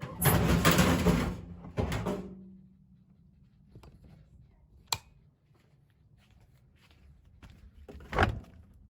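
Washing machine banging and crashing: a long loud clattering crash at the start, a second bang about two seconds in, a sharp click near the middle, and another loud bang near the end, over a low steady hum.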